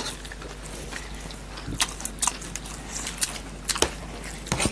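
Close-up eating sounds of people chewing forkfuls of chow mein noodles, with scattered short, sharp clicks over a low steady background.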